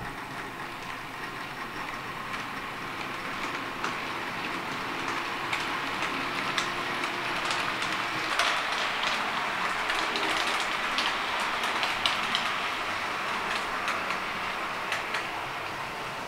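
OO-gauge model train running on Peco Code 100 track: the wheels and coaches make a steady rolling rattle, with quick clicks as they cross the rail joints. It grows louder as the train passes close by in the middle, then eases off as it runs into the tunnel.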